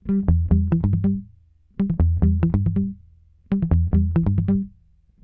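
Electronic background music: a short riff played three times, each about a second long, with brief pauses between.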